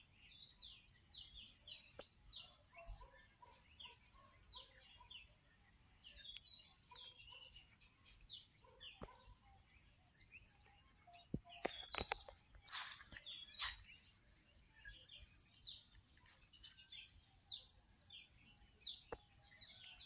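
Several small wild birds chirping and calling in a morning chorus, over a faint high note repeated evenly a few times a second. A few sharp clicks and a louder falling call stand out about twelve seconds in.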